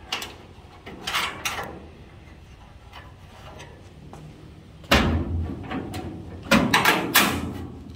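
Sheet-metal clunks and rattles as a steel inner wheel tub is shifted against the Bronco's body and bolted in place: a few knocks about a second in, a louder clunk about five seconds in, and a cluster of clanks near seven seconds.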